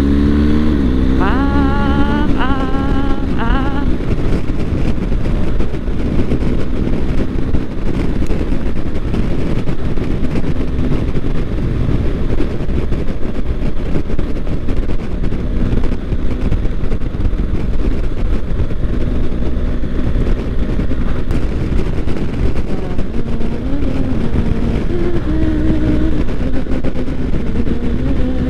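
BMW GS boxer-twin motorcycle running under way, with a steady rush of wind over it. About a second in, the engine note climbs three times in quick succession.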